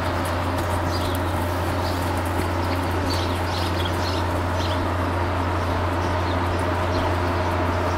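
Short bird chirps come and go over a loud, steady low hum and a constant outdoor background; no clear hoofbeats stand out.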